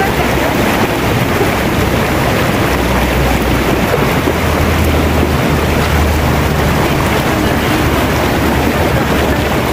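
Fast, shallow river rushing steadily over rocks, with a small cascade pouring in, and water splashing around legs wading through the current. A low rumble runs underneath.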